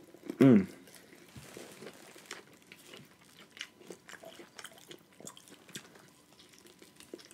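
Close-miked chewing and biting of corn on the cob: small crunches and wet mouth clicks. About half a second in, a short voiced hum that falls in pitch is the loudest sound.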